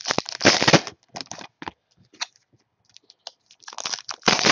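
A trading-card pack wrapper crinkling and tearing as it is opened. Two loud bursts come about four seconds apart, with scattered crackles between.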